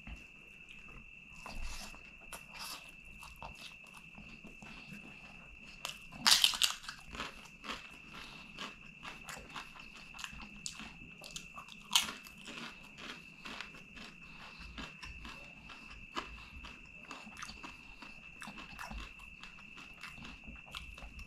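Close-miked eating by hand: chewing and mixing rice and curry, with many small crackles and a loud crunch of crisp papadam about six seconds in and another sharp crunch about twelve seconds in. A steady high thin tone runs underneath.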